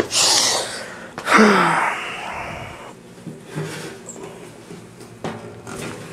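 A person's breathy vocal sounds close to the microphone: a sharp hiss of breath, then about a second in a louder breathy cry falling in pitch, followed by a few faint knocks.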